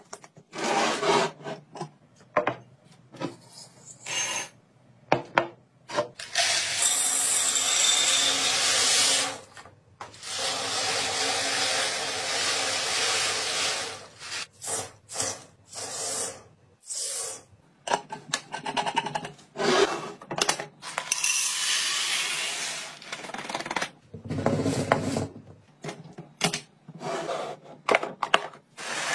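Kitchen storage containers being filled and handled in a string of short clips. A lid is screwed onto a large glass jar, dry elbow macaroni pours and rattles from its packet into a glass jar, and a plastic container's lid is handled. The sound is many sharp clicks and knocks between longer stretches of steady pouring rattle.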